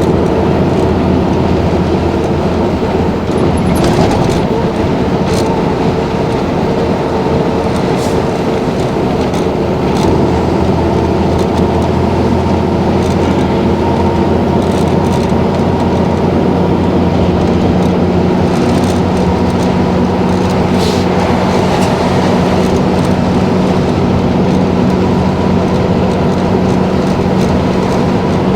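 Mercedes-Benz OM-447LA turbocharged six-cylinder diesel running steadily, heard from inside an O-400 bus, with a steady high turbo whistle over the engine drone and occasional rattles. The engine note shifts about halfway through.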